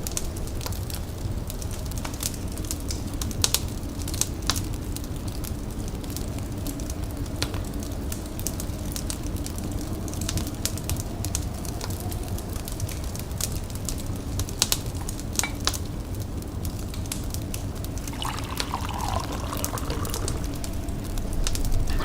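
Layered tea-by-the-fire ambience: a wood fire crackling with scattered sharp pops over a steady low rumble, together with water sounds of tea being brewed, heating and pouring. About 18 seconds in, a brief pouring sound curves up over the bed.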